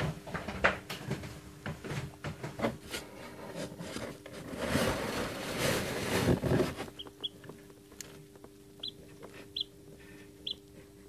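A hatching chick inside a pipped egg, tapping and scratching at the shell for several seconds, then peeping from inside it, four short high peeps spaced about a second apart. A steady low hum runs underneath.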